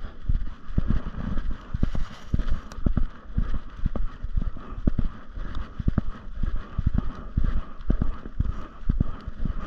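Footsteps walking along a forest dirt trail, a steady dull thud about twice a second.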